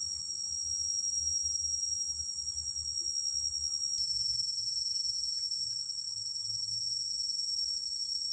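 Dense, steady insect chorus in a tropical rainforest: a continuous shrill high-pitched tone with a hiss of many insects above it, over a faint low rumble.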